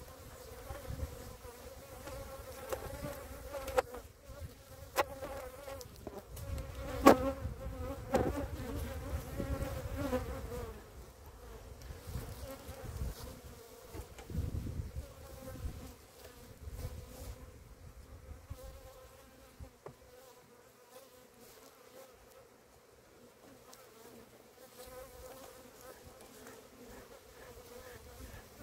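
Honeybees buzzing in a steady hum around an open hive, agitated and going on the attack. A few sharp knocks come between about four and eight seconds in.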